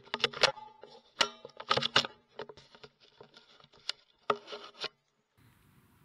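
Sharp metallic clicks and clacks in several quick clusters, stopping about five seconds in: the bolt of a CZ 452 .22 rimfire rifle being worked after a shot.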